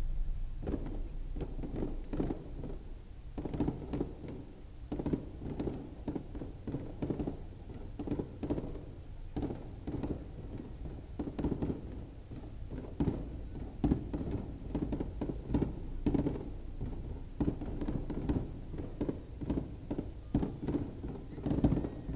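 Aerial fireworks shells bursting close to the launch site, heard from inside a car: a dense, irregular run of muffled booms and thuds, several a second at times.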